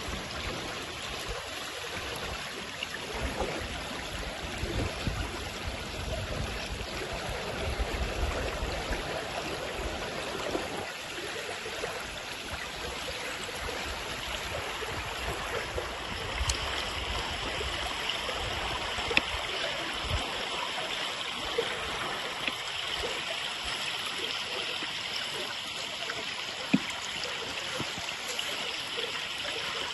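A stream flowing: a steady rush of running water, with irregular low rumbling through roughly the first ten seconds.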